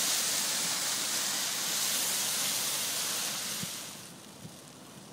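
Rustling and crinkling of a new Gin Safari tandem paraglider's ripstop nylon canopy as it is lifted and spread out, a steady hiss that dies away about four seconds in.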